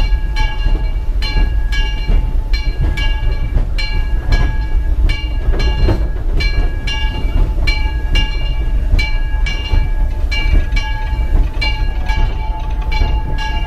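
Steam locomotive bell ringing in a steady rhythm, about one and a half strokes a second, over the low rumble of the running train.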